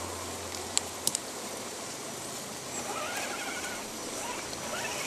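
Radio-controlled scale trail truck driving slowly over gravel, its small electric motor and gears whining in a wavering pitch as the throttle is worked. There are a few sharp clicks about a second in, typical of stones under the tyres.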